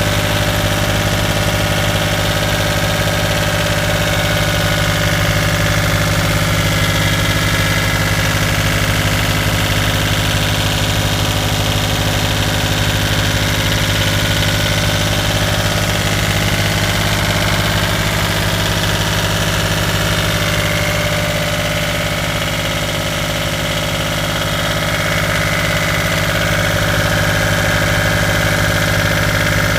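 Volvo Penta marine diesel engine running steadily at an even speed, loud and unchanging, with a slight dip in level about two-thirds of the way through.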